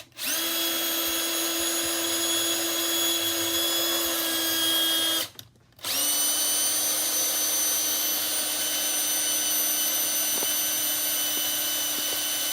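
Electric drill drilling a hole into a cabinet, a steady whine that stops after about five seconds and starts again half a second later at a slightly lower pitch.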